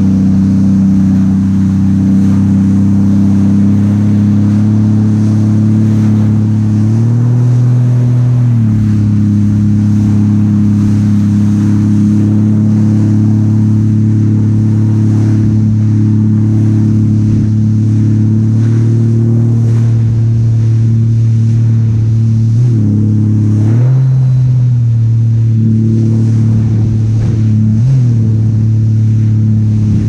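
Jet ski engine running steadily at speed. Its pitch rises for a second or so about seven seconds in, then shifts briefly a few more times near the end as the throttle changes.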